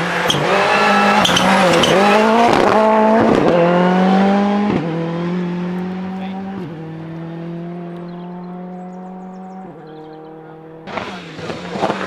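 Ford Fiesta rally car engine revving hard, its pitch jumping up and down through the junction with a few sharp cracks in the first second and a half. It then goes up through the gears three times as it pulls away, fading. About a second before the end, a Mk2 Ford Escort rally car's engine comes in suddenly, loud and close.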